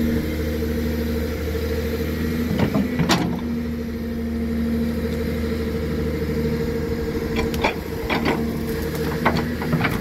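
A digger's diesel engine runs steadily, with a few sharp knocks about three seconds in and a run of clicks and knocks near the end.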